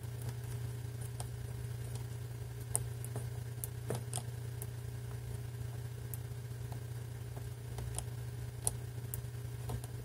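Faint, irregular small clicks of a brass combination padlock's number dial being turned by thumb while a thin craft knife presses into the gap beside it, feeling for the notch that gives away the code. A steady low hum runs underneath.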